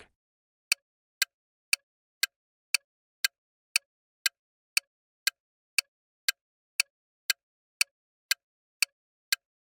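Countdown-timer ticking sound effect: short, sharp clicks at an even pace of about two a second, with nothing between them.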